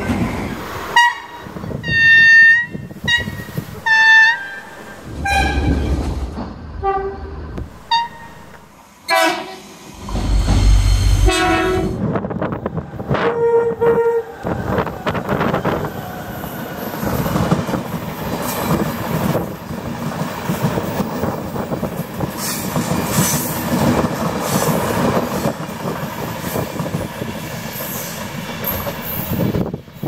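Irish Rail train horns sounding a series of short blasts at several different pitches, the loudest about two and four seconds in. After about twelve seconds a train passes with a steady rumble and clatter of wheels on the rails.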